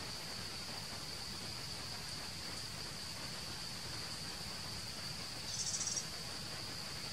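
Forest insects: a steady, high-pitched drone, with a louder, pulsing buzz of about half a second near the end.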